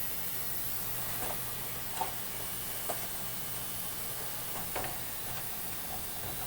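A few faint light clicks and scrapes of rust being worked off a metal thermometer part with muriatic acid, over a steady hiss and low hum.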